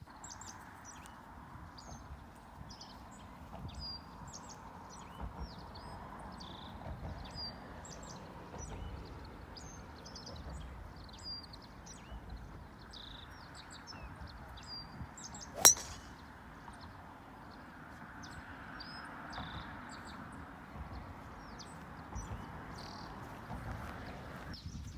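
Birds chirping repeatedly over a steady background hiss, with a single sharp golf club strike on the ball about two-thirds of the way through.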